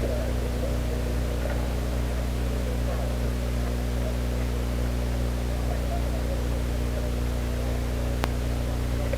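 Steady low electrical hum with hiss, with one sharp click near the end.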